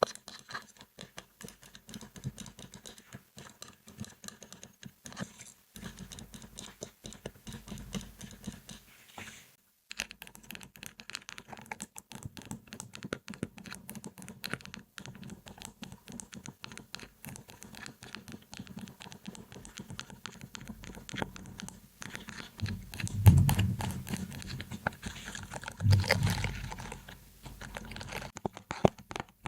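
Close-miked ASMR triggers: rapid fingernail tapping and scratching on objects, a quick run of small clicks with a short break about a third of the way in. Two louder, fuller bursts of handling noise come about two thirds of the way through.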